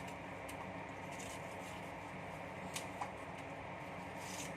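Quiet room tone: a steady low hum with a couple of faint clicks about three seconds in.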